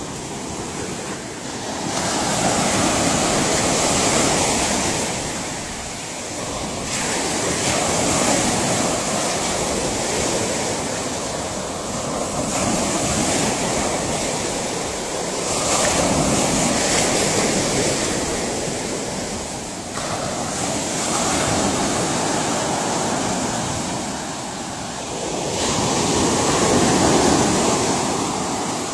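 Ocean surf: waves breaking and washing in, the rush of water swelling and fading in slow surges every few seconds.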